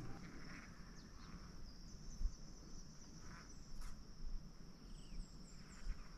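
Steady high-pitched drone of insects, with a few faint bird chirps about five seconds in.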